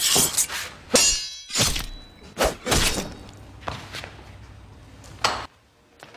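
Film fight sound effects: a quick run of about eight swishes and hits. About a second in, one crash has a short ringing rattle like something breaking.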